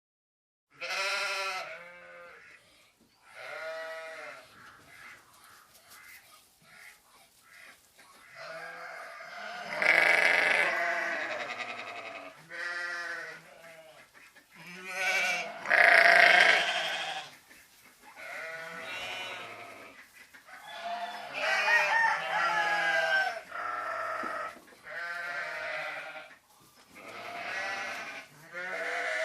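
Bleating livestock, call after call with short gaps, several animals overlapping at times. The loudest calls come about a third of the way in and again about halfway through.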